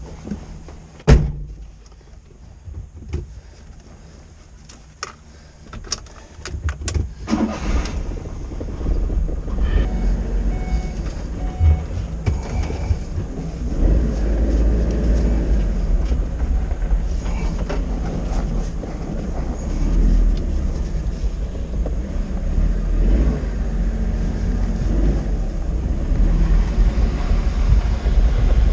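A loud knock and a few sharp clicks, then from about seven seconds in a vehicle engine runs with a steady low rumble that grows louder.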